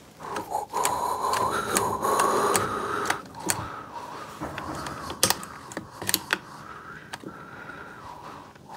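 Hand-worked clicks and rattles of a Husqvarna 142 chainsaw's throttle and choke linkage being tried out on a newly fitted carburetor. There is a wavering rub for the first three seconds, then scattered sharp clicks.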